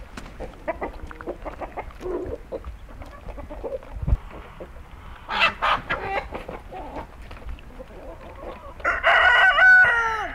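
Chickens clucking, then a rooster crowing near the end: one long call that drops in pitch as it ends.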